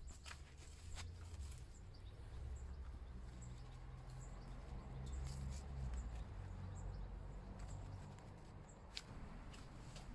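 Low, uneven outdoor rumble with a few scattered light clicks and rustles, from hands working through garden foliage.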